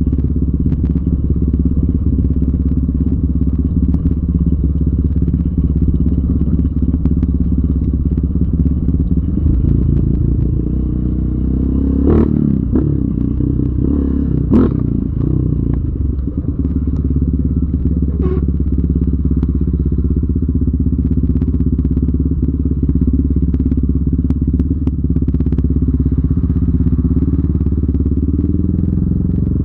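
Yamaha Raptor 700R ATV's single-cylinder engine running at a steady pace, with a few sharp knocks and clatters about halfway through.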